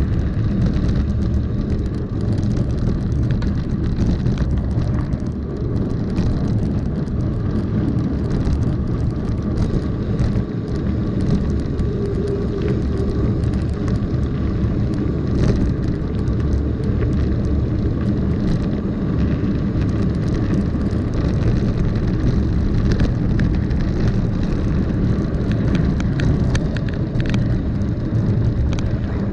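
Mountain bike rolling over a gravel road: a steady low rumble of tyres and wind on the microphone, with many small rattles and clicks from the bike.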